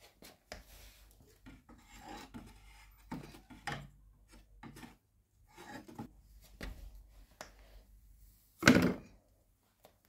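Metal flower pots being set down and shifted on a wooden plant-stand shelf: scattered scrapes and light knocks, with one louder knock about a second before the end.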